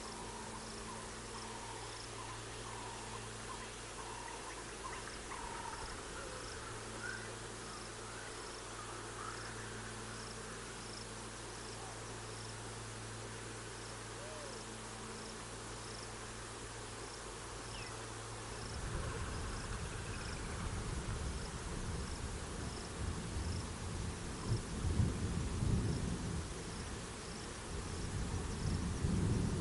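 Outdoor bush ambience: an insect chirps in a faint, even rhythm, a little over once a second, over a steady low hum. About two-thirds of the way through, a louder, uneven low rumble sets in and grows.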